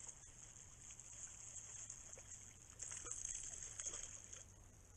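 A hooked fish splashing at the water's surface, loudest about three to four seconds in, over a steady high hiss.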